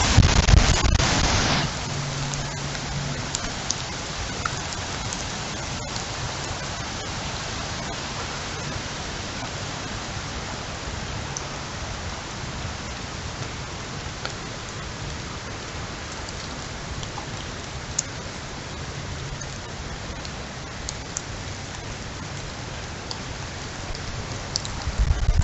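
Heavy rain falling steadily, a dense even hiss with scattered drop ticks. In the first second and a half a louder rush of noise with a deep rumble stands over it, then drops away.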